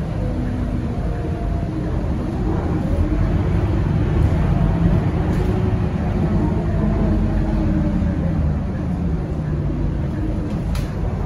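Scania K230UB city bus heard from inside the passenger cabin while driving, its five-cylinder 9-litre diesel engine and running gear making a steady low rumble. A faint whine slowly drifts in pitch, and there is a single click near the end.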